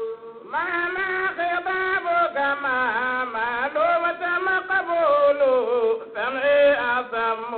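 A male voice singing an Arabic devotional praise poem to the Prophet Muhammad, in long drawn-out notes that slide and bend in pitch. It breaks off briefly about six seconds in, then goes on.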